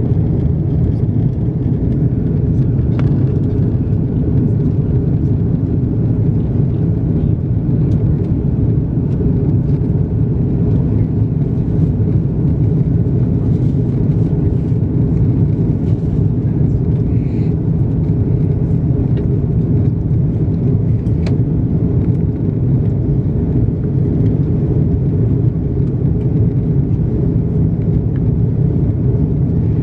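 Steady low cabin rumble of an Airbus A330-200 in flight, engine and airflow noise heard from a window seat over the wing, with a couple of faint clicks.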